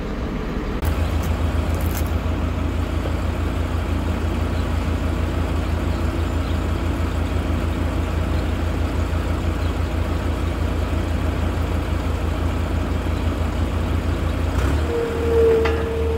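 Heavy farm diesel engine idling steadily with an even low pulse. Near the end its note shifts and a steady higher tone joins it.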